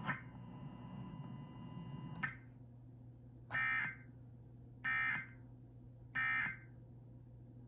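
Emergency Alert System end-of-message (EOM) data tones: three identical short buzzing digital bursts, about 1.3 seconds apart, marking the end of the alert. Before them, a click about two seconds in where the background hiss drops away.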